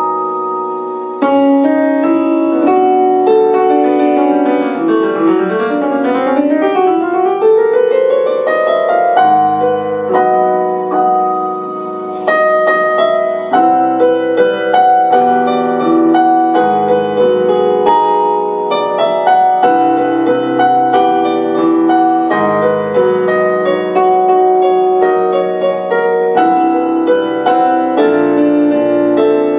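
Solo piano sound from a stage keyboard, played with full chords and fast runs. About five seconds in, a quick run sweeps down and then climbs back up.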